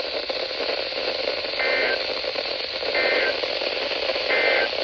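Emergency Alert System end-of-message data tones on weather radio: three short, identical warbling bursts about a second and a half apart over steady radio static, marking the end of the severe thunderstorm warning.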